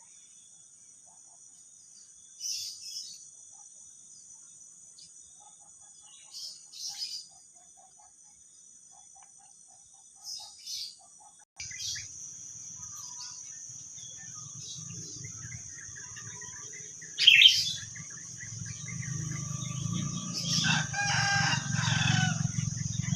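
Morning bird calls over a steady high-pitched drone, with short chirps every few seconds. Partway through, a low engine rumble starts and grows louder, and near the end a rooster crows once, about a second and a half long.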